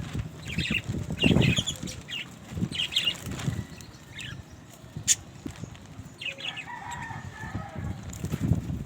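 Budgerigars chirping in short scattered bursts, with a brief warbling trill about two-thirds of the way in, over low rustling thumps.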